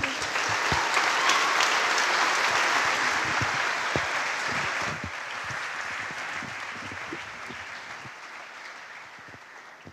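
Audience applauding, the clapping fading away steadily over the second half.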